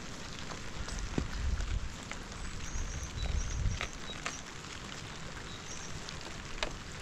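Steady rain with a shovel digging into wet soil, the blade scraping and knocking sharply several times.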